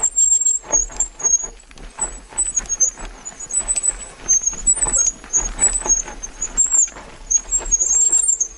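Bicycle riding over a rough track, with constant rattling and knocking and an on-and-off high-pitched squeal from its brakes.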